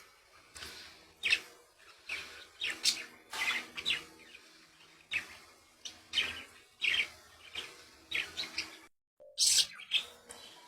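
Pet budgerigars chirping: a steady run of short, sharp calls, two or three a second.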